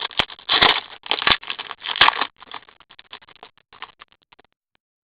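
Trading card packaging crinkling and crackling as cards and wrapper are handled, with a few sharp clicks. Loudest in the first two seconds, then thinning to scattered crackles.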